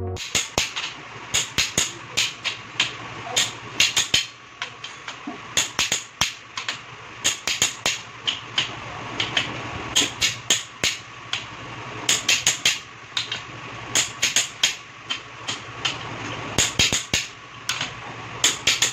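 Ratchet wrench clicking in short bursts of two to four sharp clicks, over and over, as the crankshaft main bearing cap bolts are run down on an engine block. A faint steady hum lies underneath.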